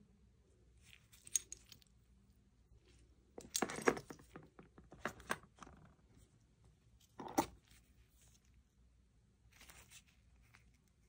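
Metal camera side handles and their mounting clamps being handled and set down on cardboard boxes: scattered clicks, knocks and short clatter, the busiest stretch about four seconds in and a single sharp click about seven seconds in.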